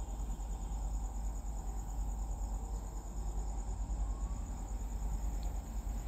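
Crickets chirping steadily in a fast, even high trill, over a low steady hum.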